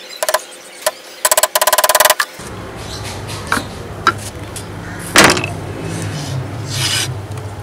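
Thin wooden trellis strips squeaking at their nailed joints as they are pivoted: a rapid stuttering squeak, briefly and then for about a second. Light wooden knocks follow as the strips are handled, the loudest about five seconds in, over a steady low hum that starts about two and a half seconds in.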